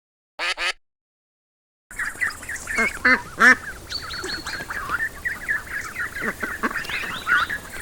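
Recorded ducks quacking, many rapid overlapping calls over a steady hiss, as played by a sound-book button. The calls start about two seconds in, after two short chirps, and the loudest quacks come around three seconds in.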